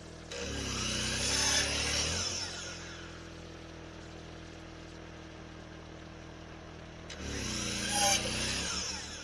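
Portable sawmill's engine running steadily while its blade cuts through a small oak log twice, each cut lasting about two seconds. The engine pitch dips under the load of each cut and recovers as the blade comes out of the wood.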